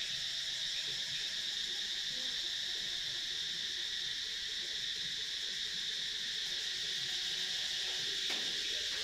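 Steady insect chorus, a continuous high-pitched drone, with a single click about eight seconds in.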